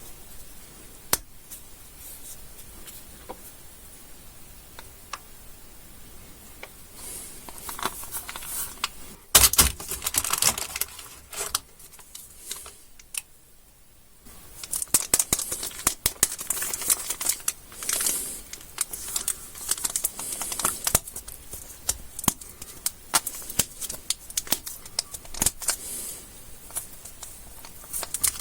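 Plastic candy wrappers being crinkled and torn open by hand, in irregular crackling bursts after a quieter stretch of a few light clicks at the start.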